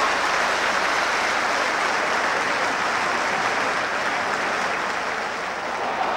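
Football stadium crowd noise: a steady wash of the crowd in the stands, easing slightly toward the end.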